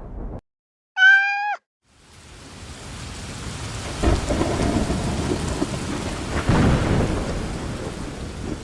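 A cat meows once, briefly, then heavy rain and rolling thunder swell in, with louder thunder rumbles about four and six and a half seconds in.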